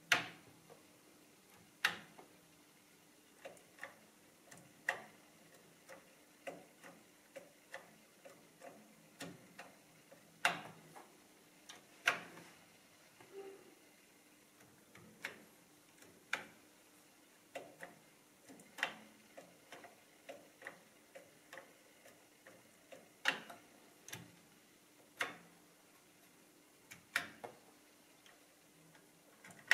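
Keys of an ELKA 6521 electronic calculator being pressed one after another: sharp mechanical clicks at an uneven pace, roughly one or two a second, some louder than others, over a faint steady hum.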